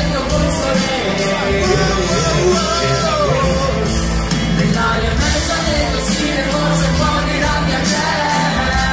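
Recorded Italian rap-pop song playing: a steady drum beat and backing track under a sung vocal line.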